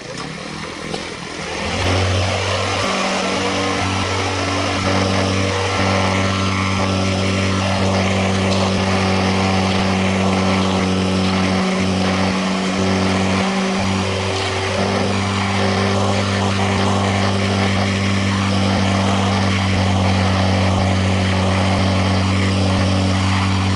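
Heavy construction machinery's engine running steadily, a loud constant low hum with mechanical noise over it, coming up about two seconds in.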